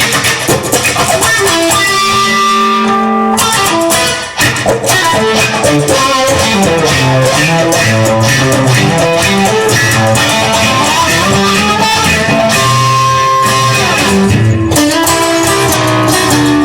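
Instrumental blues-rock passage: electric guitar playing over bass and drums with a steady beat, no singing.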